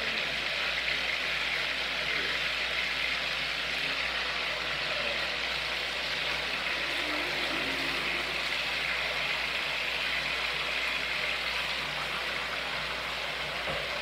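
Chicken pieces frying in hot oil in an aluminium frying pan: a steady, even sizzle.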